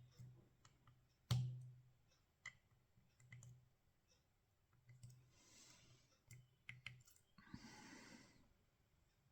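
Faint, scattered small clicks and taps of a pick working the pins of a tubular hex core lock under tension, with one sharper click a little over a second in.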